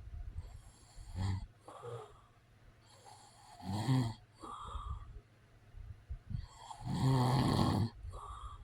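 A man snoring in his sleep, irregular snores with quieter breathing between; the longest and loudest snore comes about seven seconds in.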